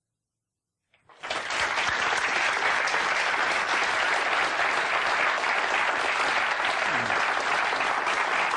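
Silence for about a second, then a large audience starts applauding all at once and keeps clapping steadily.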